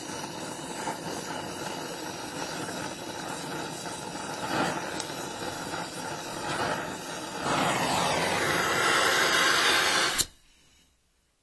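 Donmet 132A micro gas-welding torch flame hissing steadily while welding a steel pipe joint, louder for the last two or so seconds. About ten seconds in, a sharp pop and the hiss cuts off suddenly as the torch is shut off.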